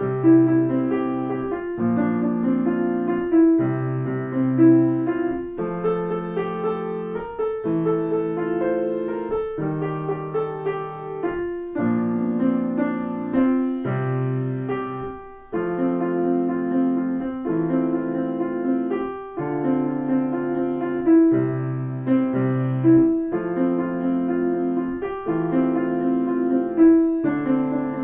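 Grand piano being played: a steady, repeating pattern of chords in the middle register, with a short break in the sound about fifteen seconds in.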